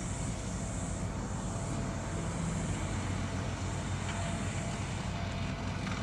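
Engine of a remote-controlled tracked flail mower running steadily while it drives and cuts grass, a low even hum with a high hiss above it that stops about five seconds in.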